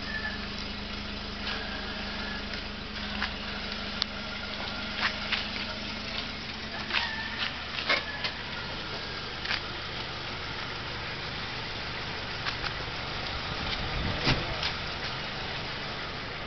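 Vehicle engine idling steadily, with scattered sharp clicks and knocks throughout. A steady hum in it drops away about six seconds in.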